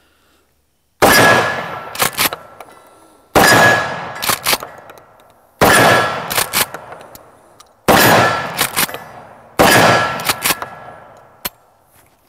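Five shots from a Remington Tac-14 12-gauge pump shotgun firing 9-pellet buckshot at a steel plate, about two seconds apart. Each blast is followed by the plate ringing and, about a second later, a quick pair of clicks as the pump action is racked.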